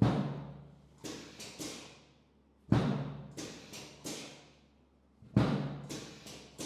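Repeated heavy thumps, each ringing and fading over about a second. A loud thump comes about every two and a half seconds, and each is followed by two lighter ones.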